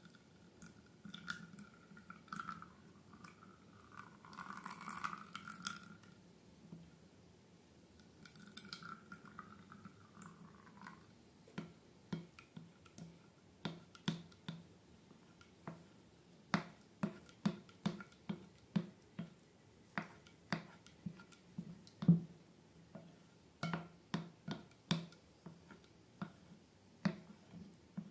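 Slime being handled and squeezed. A few soft squishing, rustling passages come first, then a long run of sharp wet clicks and pops, about one or two a second.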